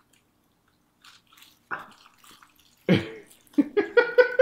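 A bite into a deep-fried omelet-and-pancake sandwich, then faint crackling chewing. Near the end a person laughs in a quick steady run of ha-ha pulses, about four a second.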